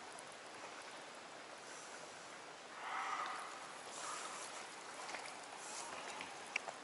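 Faint steady rush of flowing water, with a brief louder burst of noise about three seconds in and a couple of small ticks near the end.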